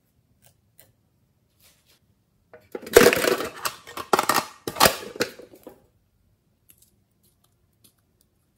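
Handling of a heart-shaped makeup case: a few seconds of knocks and rattles as it is opened and a lipstick tube is taken out, with faint ticks before and after.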